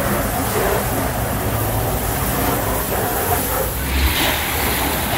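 Garden hose spraying water onto a car's painted body panels, a steady hiss of spray that shifts in tone about four seconds in.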